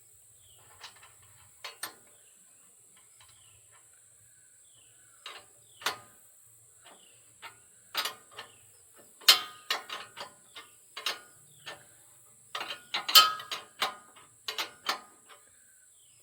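Irregular metallic clicks and clanks of hand tools working the sawmill's levelling adjusters. They are sparse at first, then come in quick clusters through the second half, loudest about nine and thirteen seconds in.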